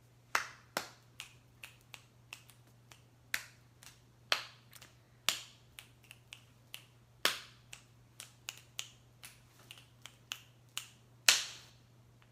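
Fingers snapping over and over at an uneven pace, about two to three snaps a second, with a loud snap near the end.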